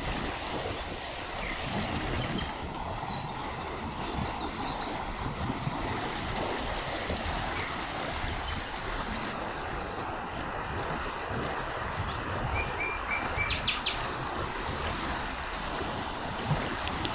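River water rushing steadily, with small birds chirping and singing over it: a cluster of high chirps a couple of seconds in and another quick run of short notes near the end.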